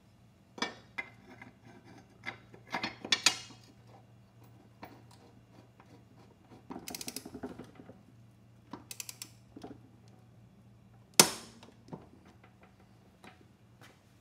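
Ratchet wrench tightening a rotary mower's blade bolt: metal clinks and rattles, runs of rapid ratchet clicks, and one loud sharp clank with a short ring near the end.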